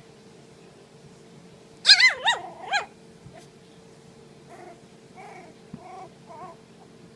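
Four-week-old puppies yelping: a loud burst of about four high, wavering cries about two seconds in, then fainter whimpers.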